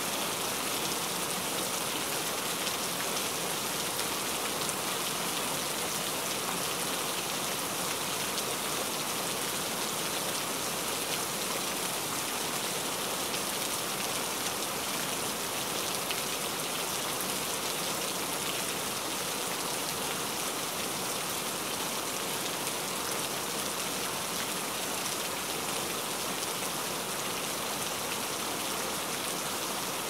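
Steady rain falling on water: an even hiss of countless drops that holds the same strength throughout.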